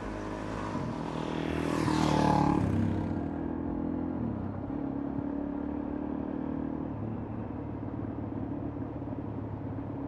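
Suzuki DRZ400 single-cylinder four-stroke dirt bike riding up and passing close by, loudest about two seconds in. Its engine then runs on steadily and duller, with a couple of small changes in pitch.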